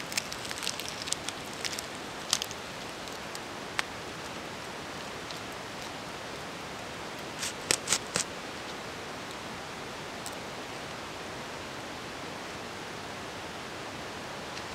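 Wood campfire crackling: sharp snaps and pops over a steady hiss, a cluster of them in the first couple of seconds and three loud pops in quick succession about eight seconds in.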